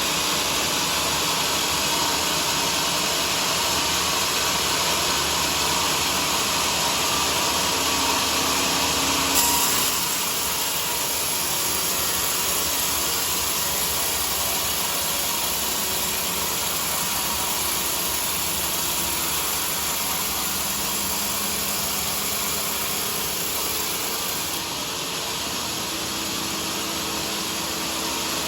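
Homemade bandsaw sawmill running, a steady machine noise with a strong hiss; the sound shifts briefly about ten seconds in and eases slightly near the end.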